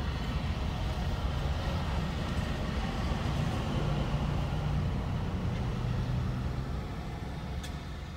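Road traffic going by, with a tanker truck passing close in front a few seconds in over a steady low rumble; the sound fades slightly near the end.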